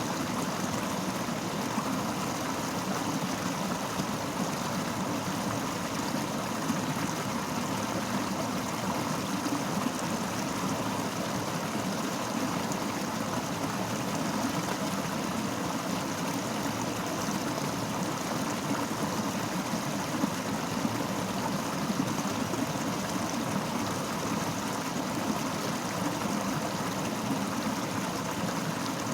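Fast-flowing river water rushing steadily, an even unbroken wash of noise.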